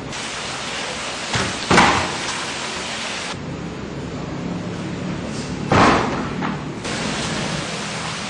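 Thuds and slaps of falls onto dojo mats, the two loudest about two seconds and six seconds in, with smaller knocks beside them, over a steady hiss.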